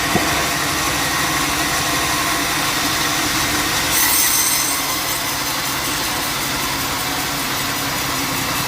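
Bandsaw sawmill running steadily, its motor and blade giving a continuous mechanical hum. There is a short click just after the start and a brief louder high hiss about four seconds in.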